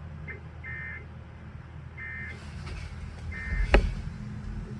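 Emergency Alert System end-of-message data bursts: three short, buzzy two-tone digital chirps about a second and a quarter apart, over a steady low hum. A single sharp knock comes about three and a half seconds in.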